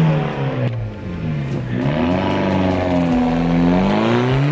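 Car engine through a freshly built sport exhaust with a custom downpipe, revving. The engine pitch sinks about two seconds in, climbs, dips again near the end and climbs once more.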